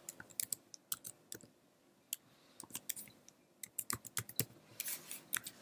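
Typing on a computer keyboard: irregular key clicks in two short runs with a pause of about a second between them.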